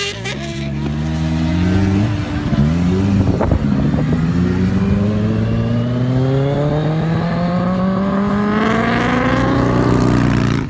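Kawasaki Ninja H2's supercharged inline-four engine under way: its pitch dips and rises a couple of times in the first four seconds, then climbs slowly and steadily for about six seconds as the bike accelerates, cutting off abruptly near the end.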